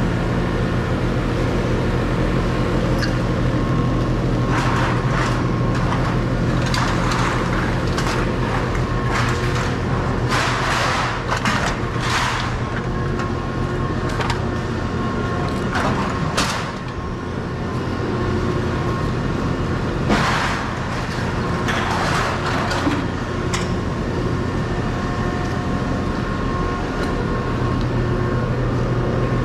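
Steady low machinery hum, like an idling engine, under irregular bursts of rustling and clatter as a plastic bag of cans is handled.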